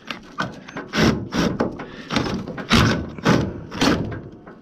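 Hand tool working a fastener on an old microwave's metal casing: a run of about six short scraping strokes, roughly one every half second.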